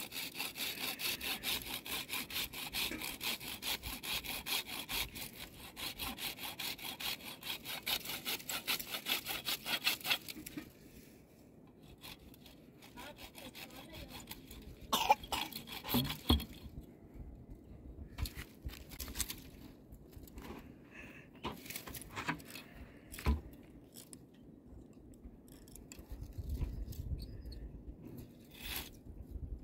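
Hand saw cutting through a wooden branch with quick, even back-and-forth strokes that stop about ten seconds in. After that come scattered knocks and scrapes, with a sharper louder sound about halfway through.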